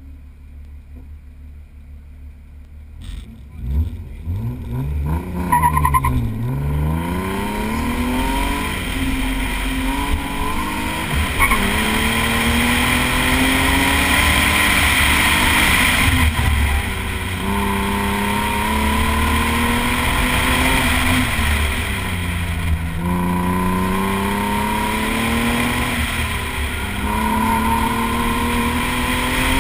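Car engine idling at the start line, then launching hard about three seconds in. It revs up through the gears, and its pitch rises and falls again and again as the car accelerates and lifts through an autocross course, heard from inside the cabin.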